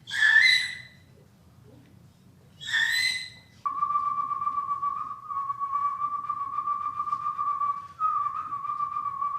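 A person imitating bird calls: two short, harsh calls, then a long, steady whistled note held for about six seconds with small steps in pitch.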